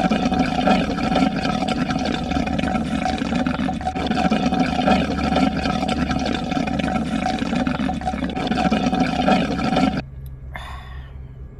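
Loud slurping and gurgling of a drink sucked up through a plastic straw, going on steadily for about ten seconds and cutting off suddenly.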